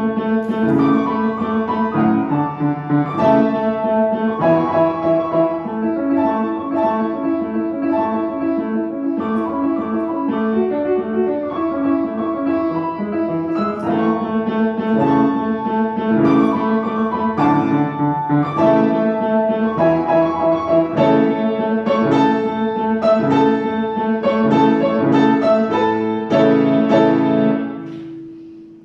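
Solo piano playing a classical piece, with a steady stream of struck notes and chords, ending on a held final chord that dies away just before the end.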